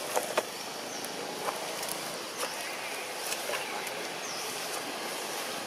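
Steady outdoor background hiss with a few sharp clicks and faint, short, high chirps now and then.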